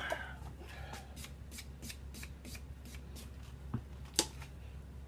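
A run of light, evenly spaced clicks, about three a second, then two sharper knocks near the end: hand work at a metal lathe while a freshly cut thread is checked over measuring pins.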